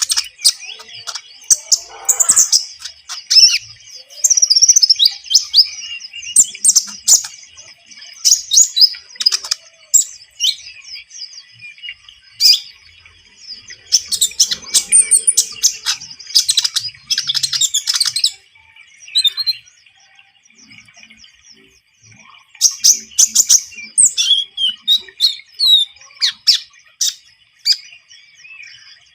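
A common iora (konin) singing busily: bursts of high, sharp chirps and quick trilled phrases, one after another, with a brief lull past the middle.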